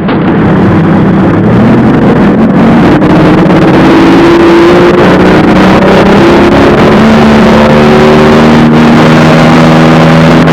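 A boat's outboard motor running steadily under way, with rushing noise around it. The engine note shifts slightly in pitch now and then.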